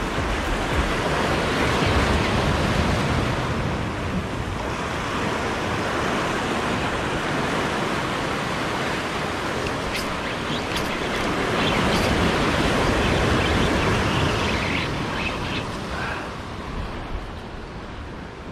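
Sea waves breaking and washing over the boulders of a rock jetty, a steady rushing surf with wind on the microphone, easing off near the end.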